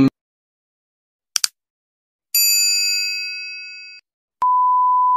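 Subscribe-button sound effect: two quick clicks, then a bell-like ding that rings out and fades over about a second and a half. About four seconds in, a steady beep tone starts and holds.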